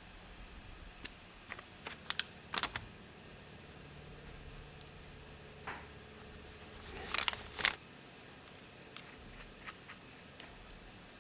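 Scattered light clicks and taps of hand work, with a brief flurry of them about seven seconds in.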